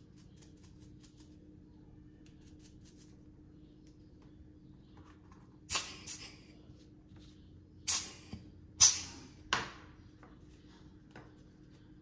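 Small parts of a Timemore Chestnut C3 ESP hand coffee grinder, its spring and rings, being handled and set down. Faint fiddling at first, then several sharp clicks about halfway through.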